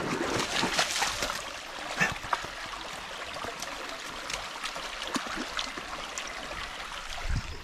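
Shallow stream trickling and gurgling over stones, with splashing as a border terrier wades through the water. The splashing is loudest in the first couple of seconds, then the flow carries on more evenly.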